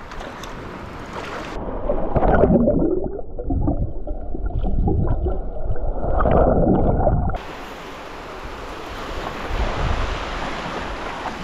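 Muffled gurgling and sloshing of seawater heard through an action camera dunked underwater, for about six seconds from just under two seconds in. Before and after it, above the surface, small waves wash in the shallows with wind on the microphone.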